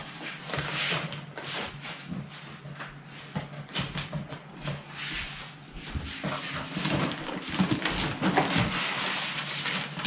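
Unboxing a desktop computer: the plastic bag crinkling and the foam packing blocks rubbing and scraping against the cardboard box, with irregular small clicks and knocks as the computer is handled and lifted out.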